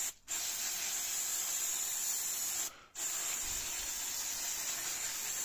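Aerosol brake cleaner spraying in a steady hissing jet onto a brake disc and caliper. The spray stops briefly twice, once just after the start and once about halfway through, as the nozzle is let go and pressed again.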